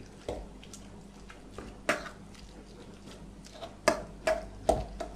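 A metal fork knocking and scraping against a stainless steel bowl while mashing canned saury, in irregular clinks, a few of them leaving a brief ring from the bowl.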